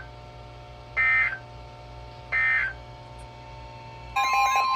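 Emergency Alert System SAME end-of-message data bursts from a weather radio broadcast: harsh two-tone digital squawks about a second and a half apart, the last of a set of three that closes a severe thunderstorm warning. About four seconds in, a steady alert tone starts with a warbling alarm over it, heralding the next warning.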